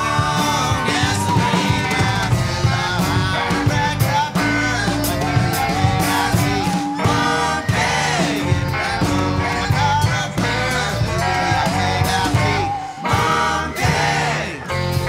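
Rock song: a band with guitar and a wavering sung line over a steady low end and regular beats.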